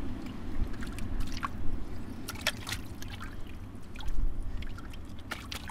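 A gloved hand sloshing and groping through muddy water in a flooded dig hole, with small irregular splashes and drips.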